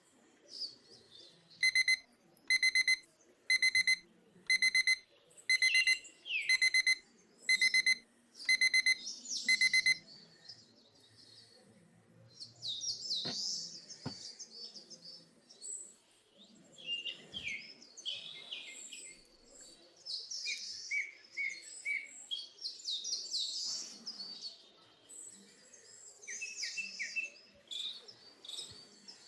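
An electronic alarm beeping in quick clusters, about one cluster a second, for some eight seconds, then stopping. Birds chirp and call for the rest of the time.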